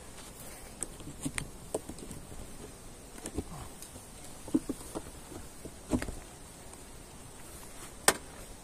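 Wooden beehive frames and boxes being handled, giving scattered, irregular light knocks and clicks, the sharpest one near the end.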